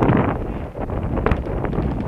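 Wind buffeting the microphone in a loud, gusty rumble, with a few sharp clicks a little past halfway.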